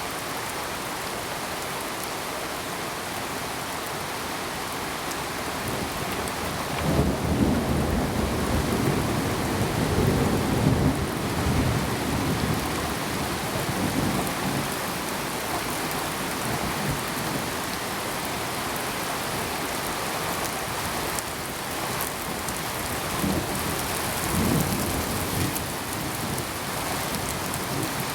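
Steady rain hissing, with thunder rumbling low for several seconds about seven seconds in, and again more briefly near the end.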